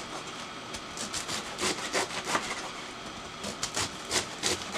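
Kitchen knife shredding a head of green cabbage on a plastic cutting board: a run of crisp, rasping slicing strokes at an uneven pace.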